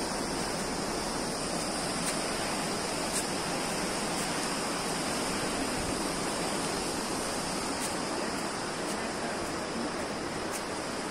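Steady rushing of a fast white-water river below.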